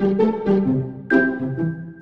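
Background music: a keyboard tune with a steady beat.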